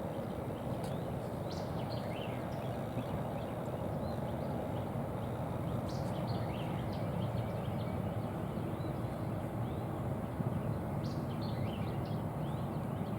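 Steady low outdoor background rumble with a few faint, short songbird chirps scattered through it.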